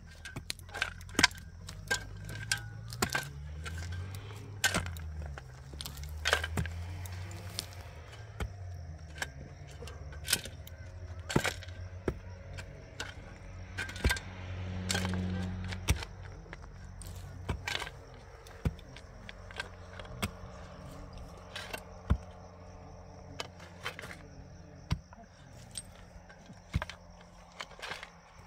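Hand tools knocking and scraping on stone and cement during masonry work: many irregular sharp clacks and taps, a few much louder than the rest. Under them runs a low hum that rises and falls in pitch.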